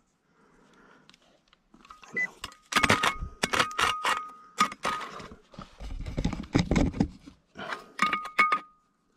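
Steel blade of a folding shovel digging into gravel and stones, with a quick run of sharp knocks and scrapes, a duller scraping spell in the middle, then more knocks. A thin, steady high tone sounds in two stretches alongside the strikes.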